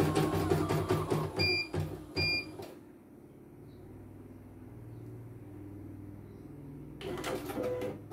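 CNY computerised embroidery machine stitching with a fast, even rattle over its motor hum, giving two short beeps as the stitching stops under three seconds in. A faint hum follows, then a few knocks near the end as the hoop is handled.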